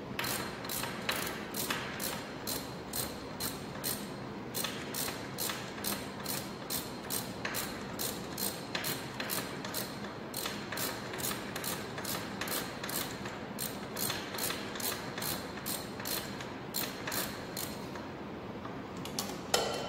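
Hand ratchet socket wrench with an extension, clicking in steady strokes about two to three a second as bolts are run down on an engine before torquing. Brief pauses come about four seconds in and near the end.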